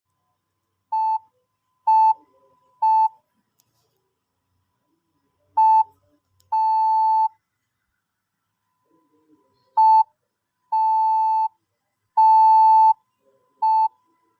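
Morse code practice beeps: one steady mid-pitched tone keyed by hand at a slow pace. It sends three short beeps, then a short and a long, then short, long, long, short, spelling S, A, P.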